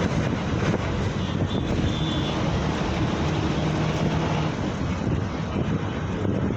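Steady vehicle noise with wind buffeting the microphone, a continuous rumble with a low engine hum.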